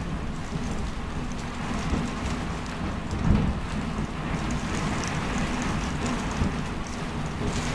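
Steady rain falling, with a constant deep rumble underneath.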